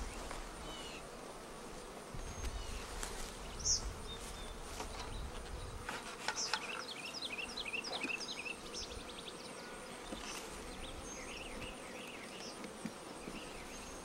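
Honey bees buzzing steadily around an opened Langstroth hive, with a few light knocks from the hive woodenware and a run of quick high chirps near the middle.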